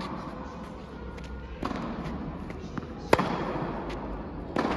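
Tennis ball struck by rackets and bouncing on an indoor hard court during a rally, heard as a few sharp pops with hall echo. The loudest comes about three seconds in and another comes near the end.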